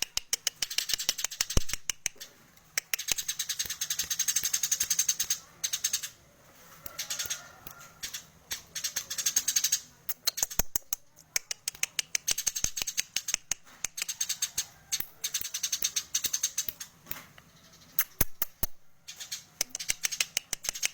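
Eurasian tree sparrow giving its fast, high ticking 'ketekan' chatter: runs of sharp ticks lasting a few seconds each, broken by short pauses.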